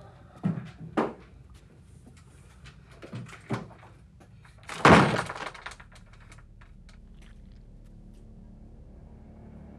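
A series of thuds and knocks in a small room. Two sharp knocks come about half a second apart near the start, two more follow around three seconds in, and the loudest, a heavy crashing thud, lands about five seconds in.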